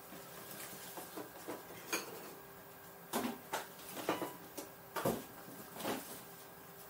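Brown packing paper rustling and crinkling as ceramic bowls are unwrapped, with the bowls clunking down on a stone countertop; the sharpest knock comes about five seconds in.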